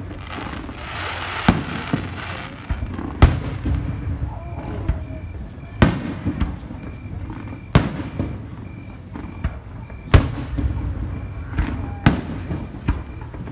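Aerial firework shells bursting, a sharp boom every two seconds or so, with crackling in between.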